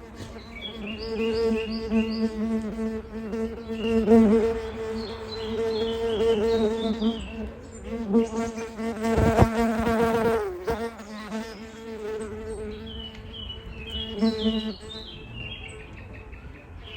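A flying insect, a fly or bee, buzzing close to the microphone, its wingbeat hum wavering in pitch and swelling as it comes nearest about four seconds in and again around nine to ten seconds. A bird chirps in short runs of high notes over it, near the start, in the middle and near the end.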